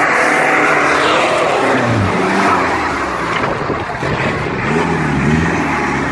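Off-road 4x4 engine revving hard, its pitch rising and falling several times.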